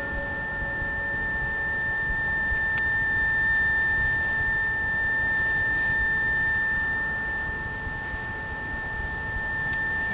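Steady high-pitched electrical whine with a fainter lower tone beneath it, over low background noise, from the recording's sound system. Two faint clicks, about three seconds in and near the end.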